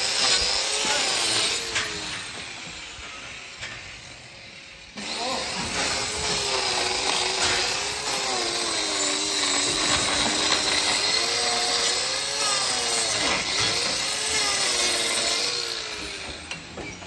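Handheld angle grinder with a trimming disc grinding a cow's hoof, its motor pitch dipping and recovering as the disc bites into the horn. It falls away for a few seconds near the start, then comes back loud and keeps grinding.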